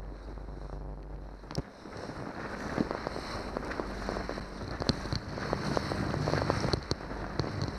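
Boat under way through choppy water: the hull slaps and knocks on the waves, spray splashes and wind buffets the microphone over the steady drone of a Johnson 90 hp V4 two-stroke outboard.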